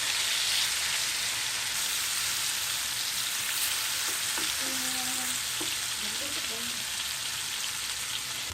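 Masala-coated fish pieces sizzling steadily as they shallow-fry in coconut oil in a pan, the fish nearly done.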